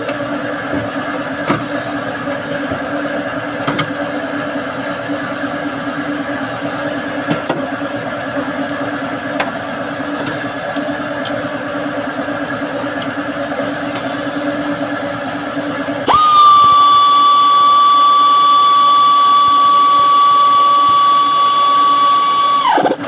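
A steady mechanical hum, then a high-speed power tool whines at a steady high pitch for about six seconds and winds down with a quick falling pitch near the end.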